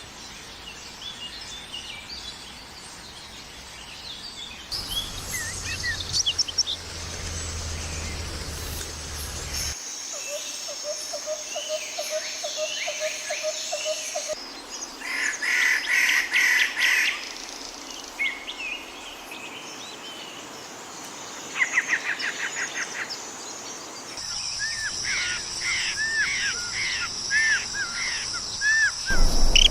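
Songs and calls of several different wild birds, in short clips that cut abruptly from one to the next about every five seconds: chirps, a fast low trill, rapid note series and repeated arching whistles. A steady high-pitched buzz, like insects, sits behind several of the clips.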